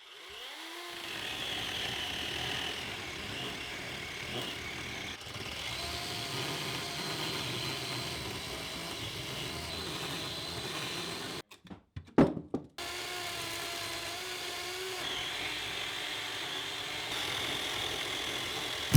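Handheld power tool spinning up and running steadily while shaping the arched top of an entry cut through a wooden cabin wall. About two-thirds of the way through it stops briefly, with a couple of sharp knocks, then starts again.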